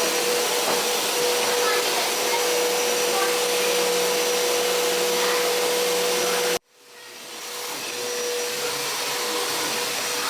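Steady rush of air with a constant motor hum from an electric blower-type appliance. It cuts out abruptly about two-thirds of the way through and fades back in.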